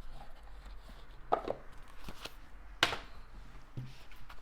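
A deck of oracle cards being handled and shuffled by hand, with soft clicks and two sharp knocks of the cards about a second and a half in and again near three seconds.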